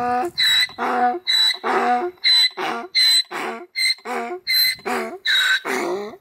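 Wild donkey braying: a rapid run of alternating high and lower harsh notes, about two to three a second, the weird, crazy-sounding bray rather than a plain hee-haw.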